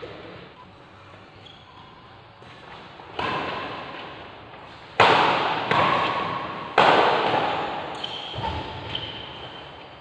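Badminton rackets striking the shuttlecock in a rally: four sharp hits, the hardest about five and seven seconds in, each echoing in the large hall.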